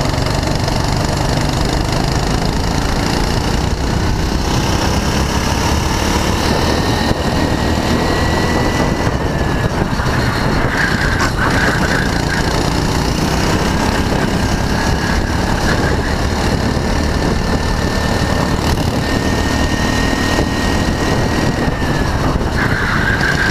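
Go-kart engine running hard, heard from on board the kart. Its pitch climbs slowly along the straights and drops twice, about nine seconds in and near the end.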